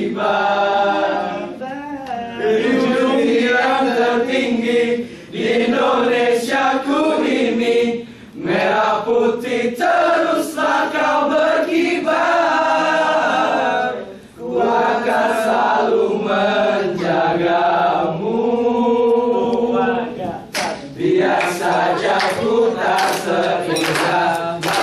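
A group of men singing together unaccompanied, in held phrases with short breaks for breath between them.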